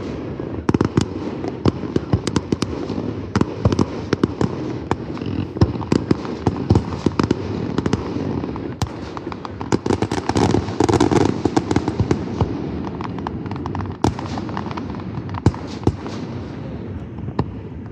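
Fireworks grand finale: a rapid, continuous barrage of aerial shell bangs over a rumbling background, densest about ten seconds in.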